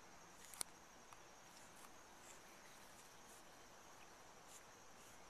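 Near silence: a faint high steady tone with soft, repeated insect chirping, and one sharp click about half a second in.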